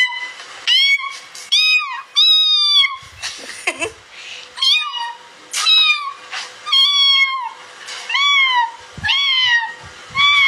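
A cat meowing over and over from inside a wire cage: about ten high meows, each rising then falling in pitch, roughly one a second.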